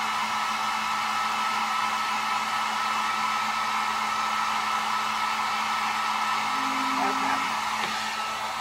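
Handheld heat gun running on its low setting: a steady blowing whir with a constant high whine. It eases off slightly near the end.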